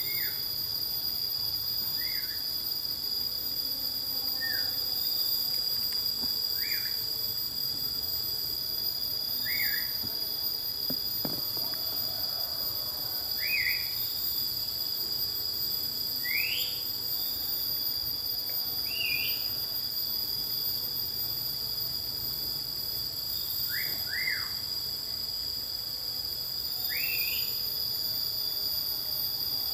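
Steady, high-pitched chorus of insects, with a bird giving short chirps every two to three seconds, some rising and some falling in pitch.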